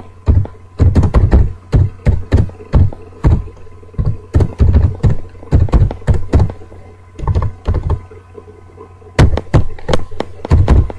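Computer keyboard keys being typed in slow, irregular strokes. Each keystroke lands as a dull knock with a deep thud close to the microphone.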